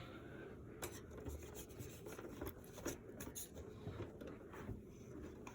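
Faint handling noises from hands working on PC parts: light rubbing and scattered small clicks of plastic and metal.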